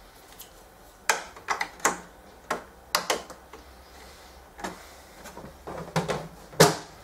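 Irregular sharp clicks and knocks of hard plastic parts being handled while filament is loaded into a 3D printer, the loudest knock near the end.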